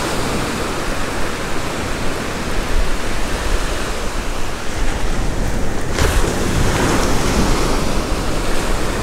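Small surf waves breaking and washing up the beach, a steady rush, with a brief sharp click about six seconds in.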